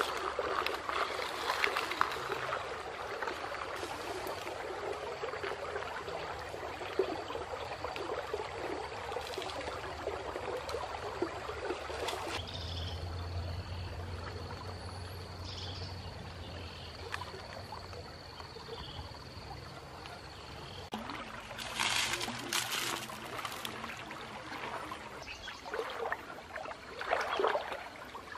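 Shallow river water sloshing and splashing, first as a crocodile swims through it, then in bursts near the end as a person wades waist-deep. A steady high tone holds for several seconds in the middle.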